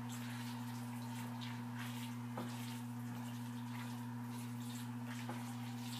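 A plastic slotted spoon stirring and scooping rice and ground beef in a skillet: light, irregular scrapes and soft clicks, over a steady low hum.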